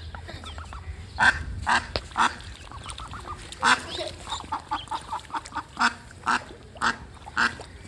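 Duck quacking repeatedly in short, loud calls, with a quick run of softer quacks in the middle.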